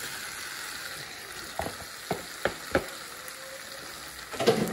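Onion, green bell pepper and tomato sizzling steadily in a nonstick frying pan as shredded chicken is added and stirred in, with four sharp knocks on the pan about halfway through and a few more near the end.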